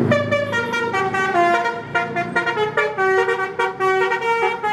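Basuri 'telolet' musical bus horn playing a quick melody, a run of horn notes each held a fraction of a second, stepping up and down in pitch.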